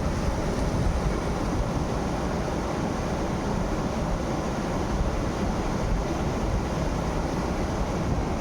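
Steady rushing noise, heaviest in the low end, with no clear single event.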